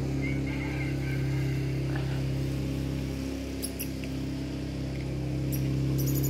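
Steady low mechanical hum with even overtones, like a machine or engine running, throughout. Short high squeaks come about three and a half seconds in and again near the end.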